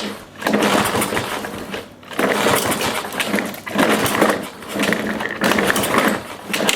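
Recoil pull-cord starter of a Mountfield SV150 mower engine being yanked about five times in quick succession, the engine turning over on choke but not firing.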